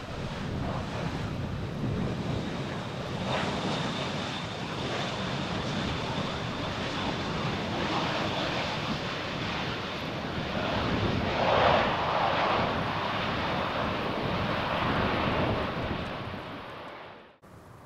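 Jet airliner passing on landing approach: a steady engine rush with a high, even whine, swelling to its loudest about twelve seconds in and then fading, before the sound cuts off abruptly near the end.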